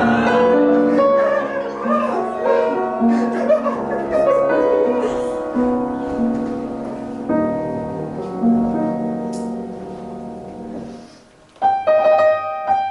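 Piano music that fades out about eleven seconds in, followed by a new, brighter piano phrase starting just after.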